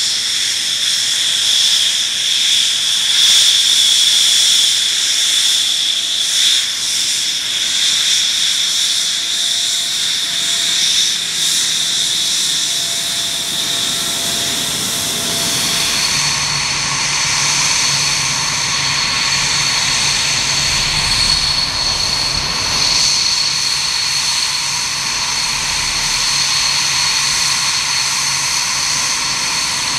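Fighter jet engines whining at taxi power: an F-16's Pratt & Whitney F100 turbofan with a steady high whine. About halfway through this changes abruptly to a higher-pitched whine over a low rumble, from a Mirage 2000's SNECMA M53 engine taxiing.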